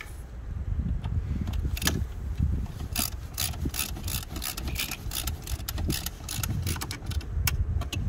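Ratchet driver clicking as T20 Torx screws are run in to fasten a mass airflow sensor, irregular clicks a few per second from about three seconds in, over a low background rumble.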